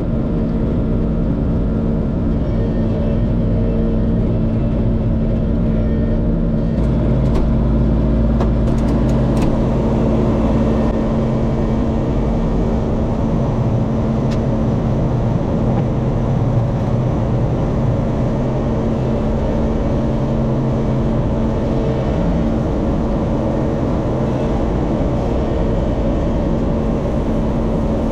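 LS MT357 compact tractor's diesel engine running steadily at working speed, with a deeper rumble and a few sharp clicks about seven to ten seconds in.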